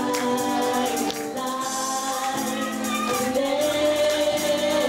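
Live band performing a pop song: two women singing, ending on a long held note, over acoustic and electric guitars and drums keeping a steady beat.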